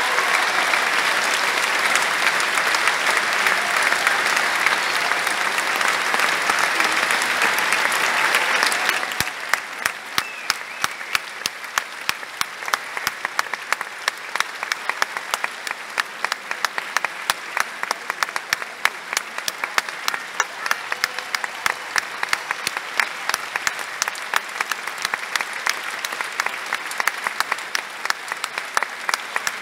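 Theatre audience applauding a ballet curtain call: a dense ovation for about nine seconds, then quieter, turning into evenly spaced rhythmic clapping.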